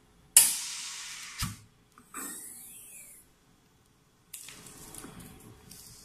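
Nano waterproof coating machine giving a sudden loud hiss of spray, triggered from its self-cleaning control, lasting about a second and ending in a thump. A second, shorter and higher hiss follows about a second later, then after a short gap a fainter steady hiss.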